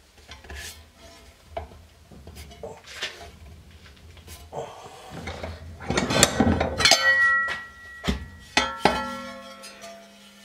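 Bent sheet-steel panels handled and fitted together: light scraping and clinks, then, from a little past halfway, several sharp metallic clanks that ring on briefly.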